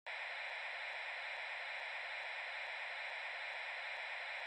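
Steady static hiss, like white noise with the low end cut away, cutting in suddenly and holding at one even level.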